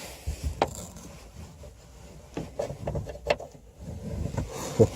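Hands working a car speaker and its fixings into the rear parcel shelf: scattered sharp clicks and taps with rubbing in between, as something that nearly slipped away is fumbled for and recovered.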